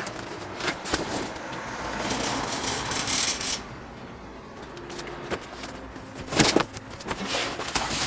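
A heavy boxed fridge being set down and shifted on a van's floor: cardboard scraping and sliding, with scattered knocks and the loudest bumps a little after six seconds in.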